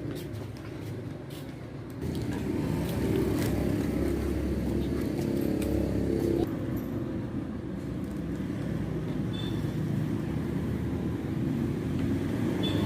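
An engine running steadily, growing louder about two seconds in and easing back about six and a half seconds in.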